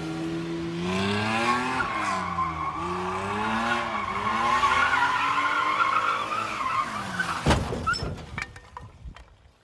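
BMW E30 convertible doing donuts: the engine revs up and down while the tyres squeal. About seven and a half seconds in there is a sharp knock as the car hits the curb, and the sound then dies away.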